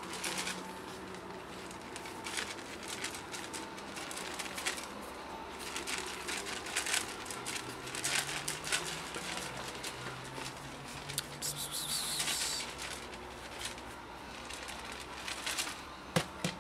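Handling noise: scattered clicks and rustles, with a brief hiss partway through and two sharp clicks near the end, as a lidded plastic food container is carried and moved about.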